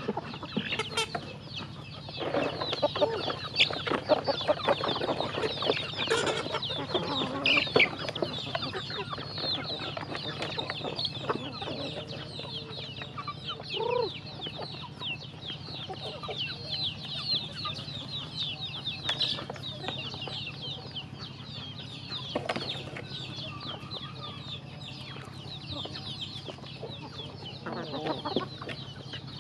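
A flock of chickens clucking and calling while feeding, with a steady stream of short high calls throughout. The flock is louder and busier for several seconds shortly after the start.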